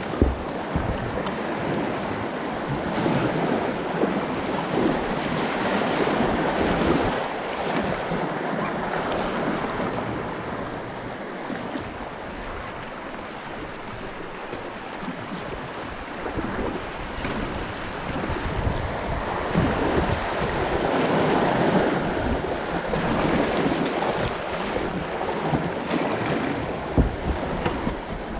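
Rushing whitewater of a river rapid close to the microphone, swelling and fading as the kayak moves through it, with paddle splashes and wind buffeting the microphone.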